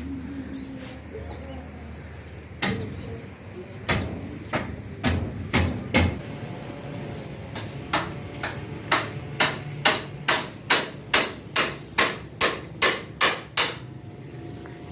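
Hammer blows: a few irregular strikes, then a steady run of about two strikes a second that stops shortly before the end.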